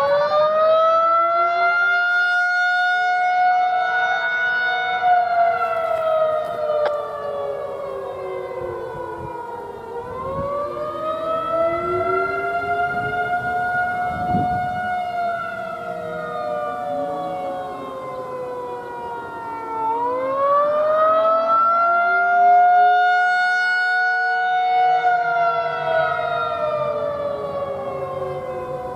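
Federal Signal 2001-130 outdoor warning siren sounding the attack signal: a loud wail whose pitch winds up quickly, holds, then slides down, once about every ten seconds.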